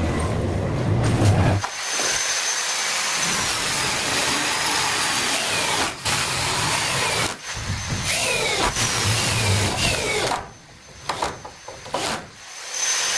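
A small power tool's motor running loud, its pitch sliding down and back up as the load changes, dropping away for about two seconds near the end.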